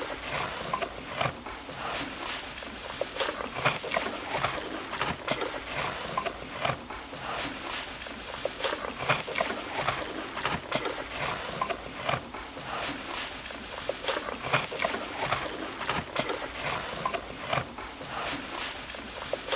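Animal noises: a dense, continuous run of short, sharp calls and clicks.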